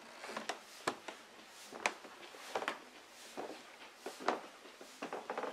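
Footsteps climbing carpeted stairs and walking on: a series of dull, irregular steps a little under a second apart.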